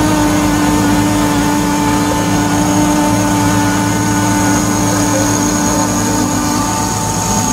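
Small engines of radio-controlled C Class model racing catamarans (up to 30cc, nitro or petrol) running flat out with a steady, high-pitched drone.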